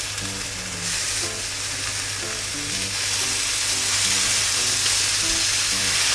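Oil sizzling steadily in a frying pan as aburaage rolls filled with enoki and pork belly are browned and crisped after steaming. Light background music of short notes plays underneath.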